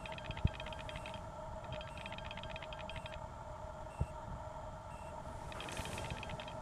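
Quiet room with a steady faint tone, two spells of fast, high chirping, and two short clicks, one about half a second in and one about four seconds in.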